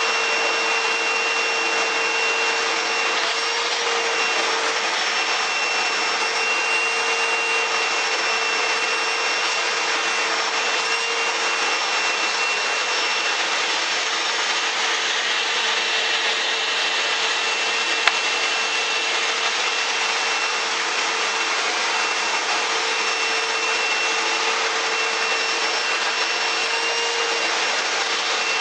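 Eureka 3670G canister vacuum cleaner running steadily: a constant motor whine over rushing air. A single sharp click about two-thirds of the way through.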